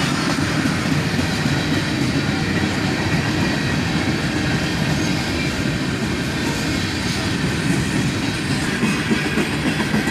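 Freight cars of a passing freight train rolling by on the rails: a steady, even rumble of wheels on track.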